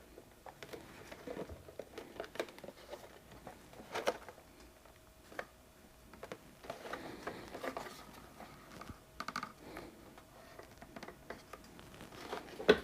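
Faint, scattered handling sounds from hands working on a motorcycle saddlebag accent light: light clicks, taps and soft scraping and rustling, with a faint steady hum in the background.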